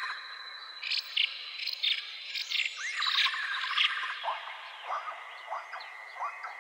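Woodland ambience of several birds chirping and calling in short repeated phrases over steady high-pitched insect trilling; the trill drops to a lower steady pitch about two thirds of the way through.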